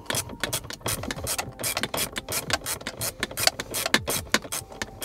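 Small hand ratchet clicking in quick runs of sharp ticks, several a second, as its handle is swung back and forth to undo the T15 Torx screws holding a car dashboard speaker.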